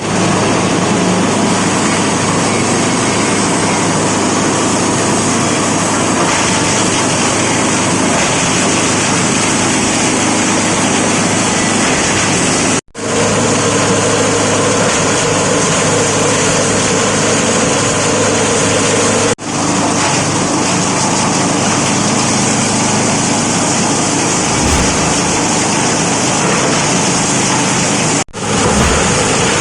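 Plastic bottle shredder machine running with a loud, steady mechanical din. The sound cuts out abruptly three times, each time for a split second.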